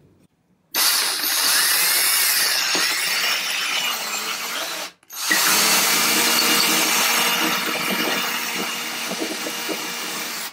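Cordless drill boring a dowel hole through a wooden patch on a chair leg. It runs in two stretches: it starts about a second in, stops briefly near the middle, starts again, and cuts off sharply at the end.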